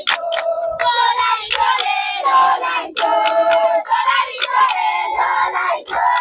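A crowd of football supporters singing and chanting together, many high voices at once, with sharp hand claps through it.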